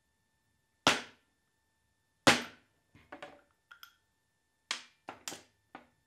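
Mallet blows on a Porsche 911 steering rack housing during disassembly: two hard, sharp strikes about a second apart, then a string of lighter knocks and metallic clinks.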